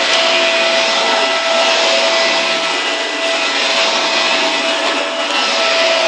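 Vacuum cleaner running steadily: a constant motor whine over the rush of air.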